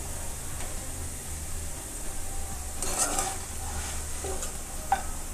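Faint kitchen handling noise over a steady low hum: a short scrape about three seconds in and a couple of light clicks near the end, as a serving plate is moved beside a frying pan.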